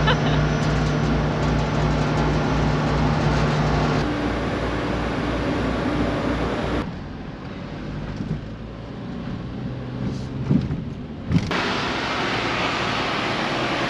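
Steady engine drone with a low, even throb. It changes abruptly about four seconds in and again near seven seconds, where it turns duller and quieter with a few knocks, then returns brighter at about eleven and a half seconds.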